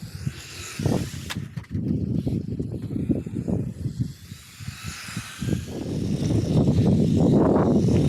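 A 1:28-scale micro RC car driving on skate-park concrete: small tyres rumbling over the surface under a faint electric motor whine, getting louder from about six seconds in. There is one sharp click early on.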